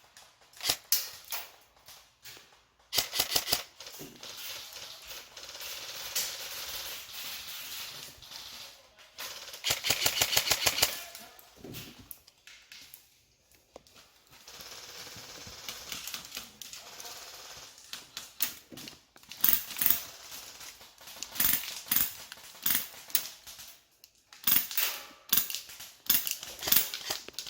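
Airsoft guns firing: sharp clicky shots in irregular bursts, including a rapid full-auto string of about ten shots around ten seconds in and a scatter of single shots and short bursts in the last third.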